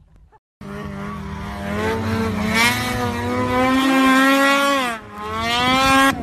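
Snowmobile engine running at high revs, its pitch climbing slowly; the revs drop sharply about five seconds in, climb again, and the sound cuts off suddenly near the end.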